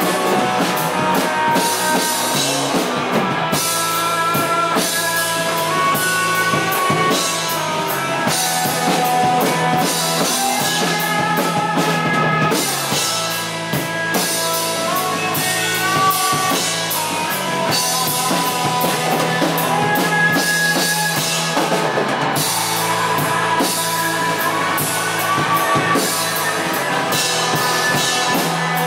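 Rock band playing an instrumental passage live: two electric guitars, electric bass and a drum kit with cymbals, and no singing.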